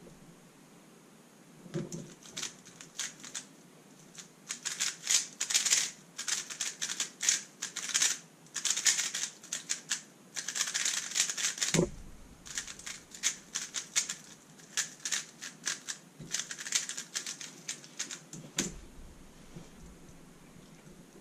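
Thunderclap v3 M magnetic 3x3 speedcube being turned at speed: fast runs of plastic clicking. Dull thumps come about two seconds in, near twelve seconds and near nineteen seconds.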